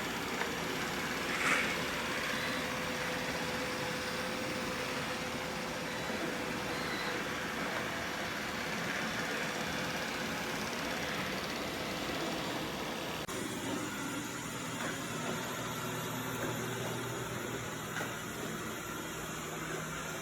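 Roborock S8 robot vacuum running: a steady whir of its suction fan and brushes. About two-thirds of the way through, the sound shifts, losing its hiss and gaining a lower hum.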